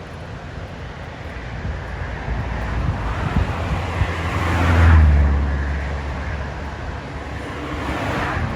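Road and wind noise from riding, with a vehicle passing loudly about five seconds in: the sound swells, peaks and fades. A second, smaller pass comes near the end.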